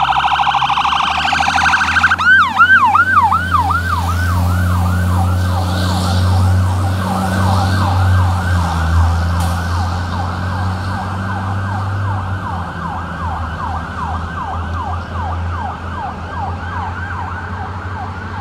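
Fire truck electronic siren, a fast warble for the first two seconds, then switching to a yelp of about four sweeps a second, fading slowly as the truck drives away. A low steady rumble runs underneath.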